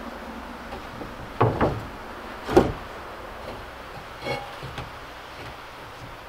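Several irregular knocks and thuds of timber being handled and set in place during roof building, the loudest about two and a half seconds in.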